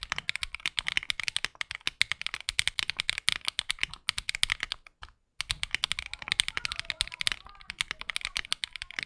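Typing on a Finalkey V65 aluminum 65% mechanical keyboard with its internal foams removed: a fast, steady run of keystrokes, with a brief pause about five seconds in.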